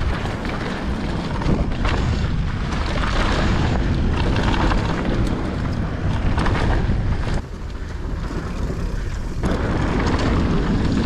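Wind rushing over the camera microphone and mountain bike tyres rolling and rattling over a dirt trail at speed. It eases for about two seconds past the middle, then picks up again.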